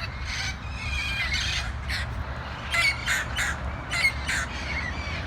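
A flock of wild parrots squawking, many short harsh calls overlapping, loudest about three and four seconds in.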